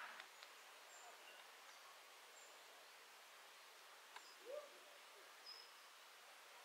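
Quiet open-air ambience with faint, short, high bird chirps scattered through it. There are a couple of soft clicks and a brief lower call about four and a half seconds in.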